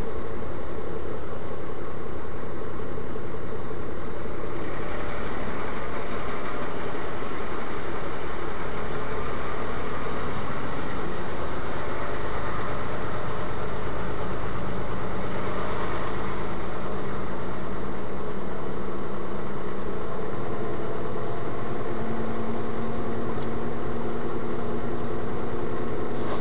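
Vehicle engine running and road noise heard from inside the cab of a slowly moving vehicle. The sound is steady, with the engine note rising a little about halfway through and again near the end.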